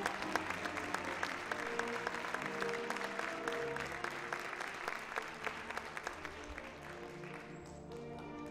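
Audience applauding over recorded orchestral ballet music. The clapping fades away near the end, leaving the orchestra playing.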